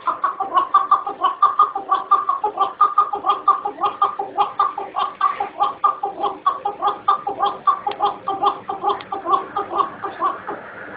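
Chukar partridge calling: a long, unbroken run of rapid chuk notes, about five a second, fading near the end.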